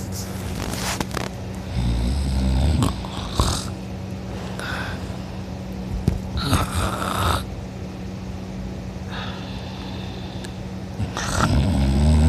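A person snoring loud in her sleep: two long, rough snores, one about two seconds in and one near the end, with shorter breathy sounds in between.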